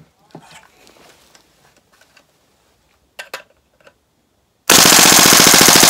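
Gas blowback airsoft L85A2 firing a loud full-auto burst of about fourteen rounds a second, which starts near the end after a few faint clicks of handling.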